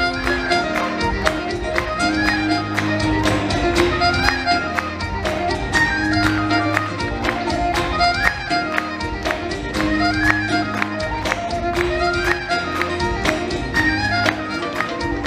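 Live Celtic band playing an instrumental tune: a fiddle leads a fast melody over strummed acoustic guitar and a drum kit keeping a steady quick beat.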